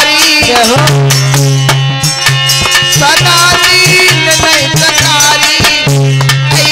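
Instrumental passage of Indian devotional folk music: reedy harmonium chords and a bending melody line over quick hand-drum strokes.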